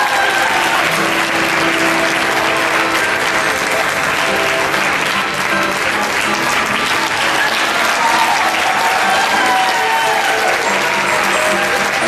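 Audience applauding steadily throughout, with music playing underneath.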